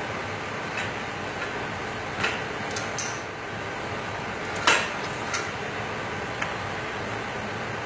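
A few sharp metallic clanks of gym weight equipment being handled, the loudest about four and a half seconds in, over a steady background hiss.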